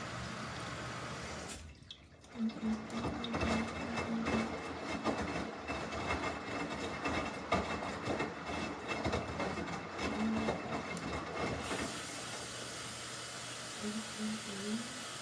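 Samsung washing machine running its water cycle: a steady rush of water, broken from about two seconds in by roughly ten seconds of louder, uneven sloshing and splashing in the drum, then settling back to the steady rush.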